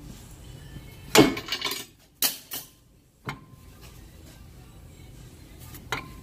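Metal-on-metal clanks and knocks as a car's lower ball joint stud is shaken and knocked into the front lower control arm: a loud clatter about a second in, a few sharp knocks over the next two seconds, and one ringing clank near the end.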